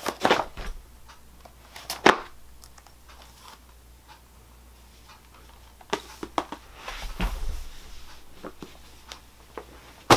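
Paperback book pages riffled and handled, with crisp rustles and sharp page snaps near the start and a louder snap about two seconds in. Later come a few scattered soft clicks and a brief rustle of movement.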